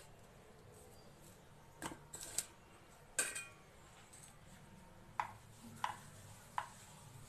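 Scattered clinks and knocks of a stainless steel bowl and kitchen things on a counter. One rings briefly about three seconds in, and three light knocks follow near the end.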